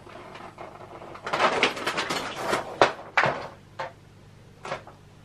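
Handling of a wall-hung glass bottle clock: scraping and rustling for a couple of seconds with a few sharp knocks, then two single clicks.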